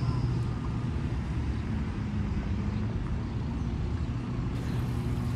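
Road traffic: a steady low engine hum of vehicles.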